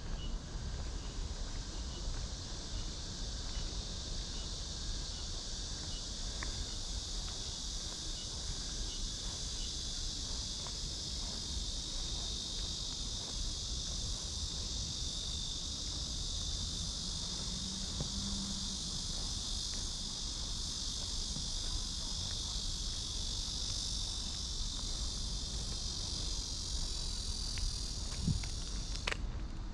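Chorus of cicadas shrilling steadily and without pause, with a low rumble underneath. For the first ten seconds or so, a faint short chirp repeats a little under twice a second.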